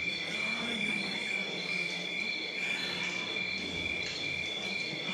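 Crickets chirping in a steady, even trill, a recorded night-time sound effect.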